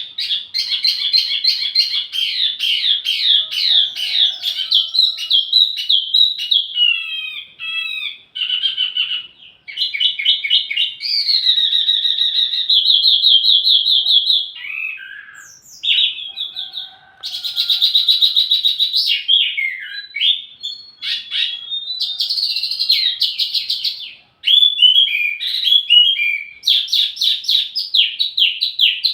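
Wambi mini songbird singing: fast chattering trills and sweeping whistled notes in varied phrases, broken by short pauses.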